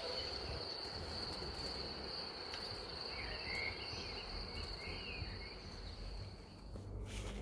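An insect's continuous high-pitched trill, held at one steady pitch and stopping just before the end, with a few faint short chirps in the middle.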